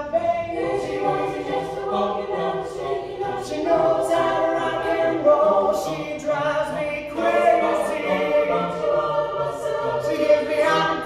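A mixed-voice high-school a cappella group singing in harmony, several parts holding chords with no instruments.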